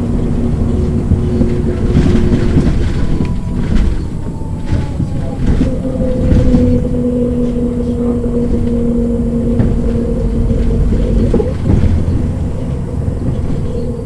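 MAN NG 313 articulated bus under way, heard on board: its diesel engine runs with a steady drivetrain whine. The whine drops out about three seconds in and comes back at a new pitch about six seconds in, as the automatic gearbox shifts, with short rattles and knocks in between.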